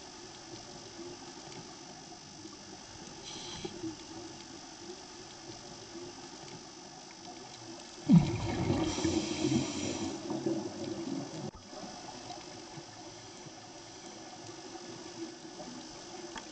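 Underwater audio of a scuba dive: a faint steady hiss, then about eight seconds in a sudden loud rush of scuba exhaust bubbles from a regulator that fades over two to three seconds.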